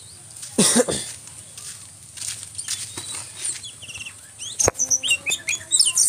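Mynas flapping their wings as they land, with a loud burst of wingbeats about half a second in. Short, sharp chirping calls come in the last second and a half.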